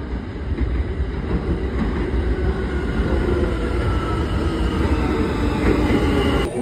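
New York City Subway train pulling into an elevated station, its wheels and motors rumbling and growing louder as it nears, with a faint high whine.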